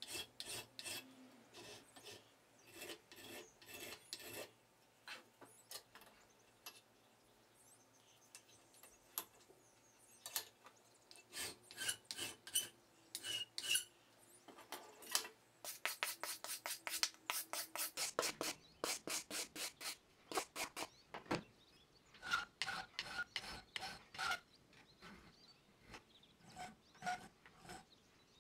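Flat hand file scraping across a small metal angle piece clamped in a bench vise, in runs of quick back-and-forth strokes with short pauses between. The filing is smoothing off a rough saw-cut edge.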